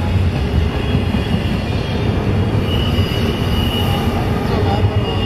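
Double-stack container freight train rolling past close by: a steady rumble of steel wheels on rail. A thin high wheel squeal comes in about halfway through.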